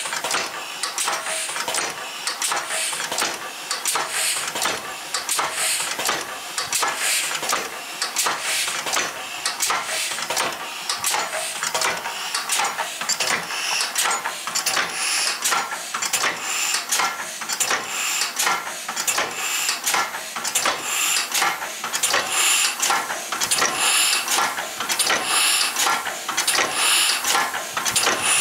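Homemade twin-cylinder compressed-air engine running slowly, around 45 RPM: its cams, push rods and valves click and clank in a steady rhythm, with regular hissy puffs of air at the valves.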